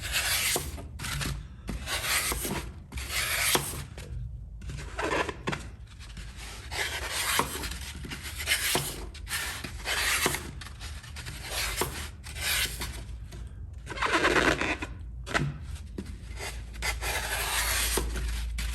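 Block of dry floral foam scraping and rubbing against the rim and sides of a pot as it is pushed and wedged down, in a series of short rasping strokes about a second apart.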